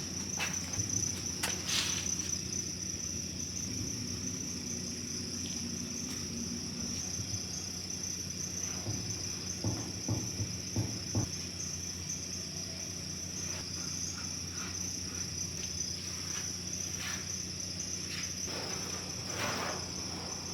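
Silicone sealant being worked onto a leaking metal water trough: scattered short clicks, taps and scrapes, thickest about halfway through and near the end. Behind it run a steady high-pitched whine and a low hum.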